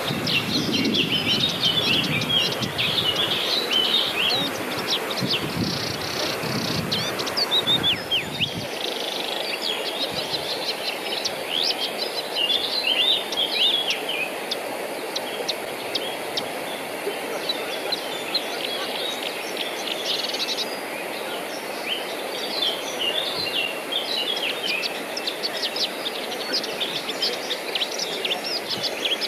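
Several songbirds chirping and singing over a steady rushing background, with a low rumble that stops abruptly about eight seconds in.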